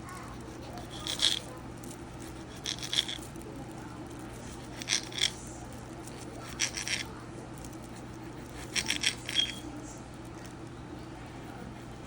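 Light clinks of kitchenware being handled, in short clusters of a few sharp ringing taps every second or two, over a steady low hum.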